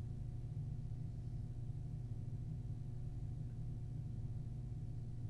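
Steady low electrical hum with a stack of evenly spaced overtones, the background tone of a surveillance recording; no voices or other events.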